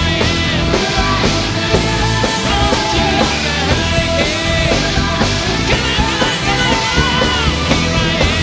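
Hard rock band playing live: male lead vocals sung over electric guitars, bass and drums.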